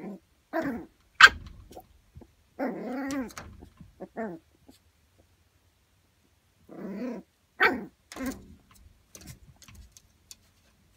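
Small puppy barking and growling at its own reflection in a mirror, in short bursts with a quiet gap of about two seconds midway.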